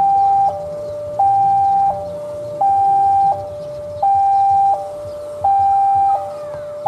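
Electronic warning alarm at a railway level crossing sounding a steady hi-lo two-tone, the higher tone louder and each tone held about three-quarters of a second, signalling an approaching train.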